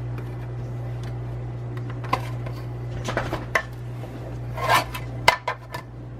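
Oster coffee grinder humming steadily after being switched on but failing to grind properly, with short plastic clicks and knocks from about two seconds in as the machine is handled.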